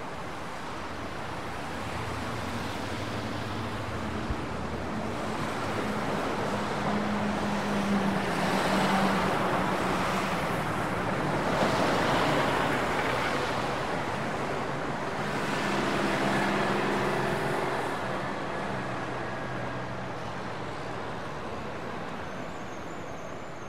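Road traffic passing: a continuous rush of noise with a low engine hum. It swells as vehicles go by, loudest about ten to twelve seconds in and again around sixteen seconds.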